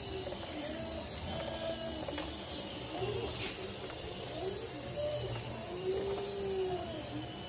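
A small wheeled robot's electric drive motors whining as it drives, the pitch gliding up and down as the wheels change speed.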